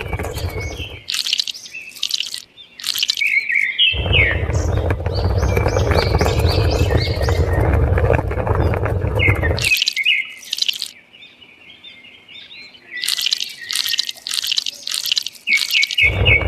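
Small birds chirping and twittering repeatedly, with stretches of a loud, low rushing noise that stops about a second in, returns from about four to ten seconds, and comes back briefly near the end.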